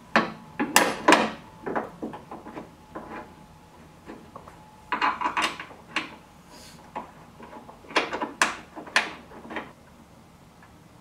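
Hand tools and metal parts clinking and scraping in irregular bursts of short clicks, as bolts are worked at the hood hinge and a steel ditch-light bracket is fitted. The busiest bursts come at the start, about five seconds in, and again around eight to nine seconds in.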